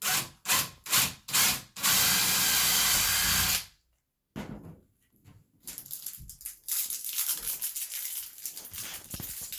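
Drill boring the second handle-mounting hole through a closet door. Four short trigger pulses come first, then a steady run of about two seconds that stops abruptly. Softer, irregular noise follows.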